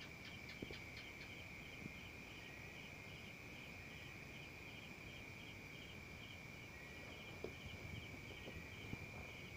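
Faint cricket chirping, about two to three short chirps a second, over a steady high-pitched tone. A couple of soft taps near the end.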